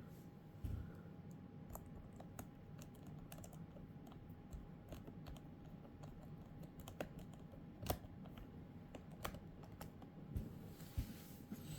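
Irregular small plastic clicks and taps from handling a PS4 controller, with a few louder knocks.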